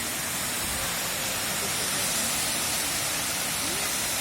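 Steady rushing roar of a waterfall, water falling and splashing without letup.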